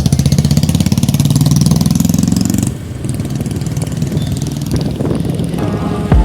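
A motorbike engine running with a fast pulsing beat; its pitch climbs over the first couple of seconds as it speeds up, then drops off suddenly to a lower steady rumble. Background music comes in near the end.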